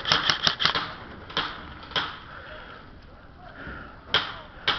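Airsoft guns firing: a rapid string of shots stops under a second in, then single shots follow at irregular intervals.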